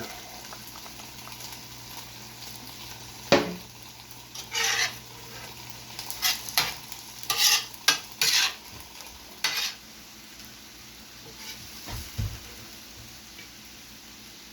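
Ground beef, onions and peppers sizzling on a steel flat-top griddle while a metal spatula scrapes and clacks on the griddle surface: a sharp clack about three seconds in, then a run of short scrapes, and a low thud near the end.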